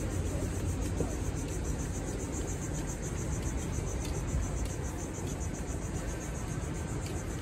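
Insects trilling: a high-pitched sound that pulses evenly several times a second, over a steady low rumble.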